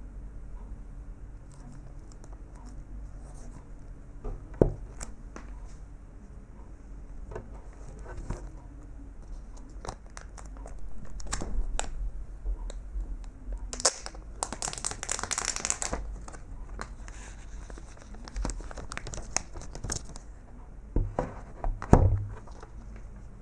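Clear plastic shrink-wrap film being torn and peeled off an iPhone SE 2020's cardboard box, crinkling, with scattered clicks. A longer tearing stretch comes about halfway through, and a few sharp knocks near the end.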